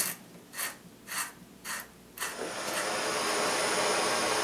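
Four short rasping strokes about half a second apart, then, a little over two seconds in, a handheld propane blowtorch lights with a pop and settles into a steady hissing flame with a faint high whistle.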